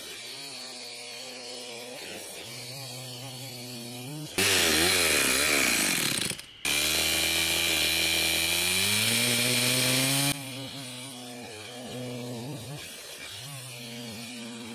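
STIHL MS 260 two-stroke chainsaw running: idling for about four seconds, then revved hard with its pitch wavering, a brief dip, and about four seconds held at high speed as the chain cuts into a log, before dropping back to idle.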